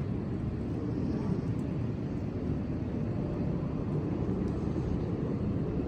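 Steady low road and engine rumble of a car driving, heard from inside, with a few faint ticks now and then.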